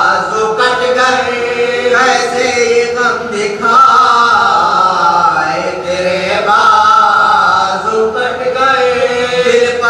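A male voice chanting an Urdu elegy in long, drawn-out held notes, gliding between them.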